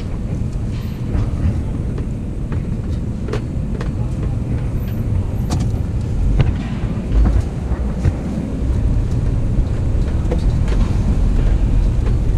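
A vehicle carrying a scrap load drives slowly, with a steady deep rumble and scattered knocks and rattles.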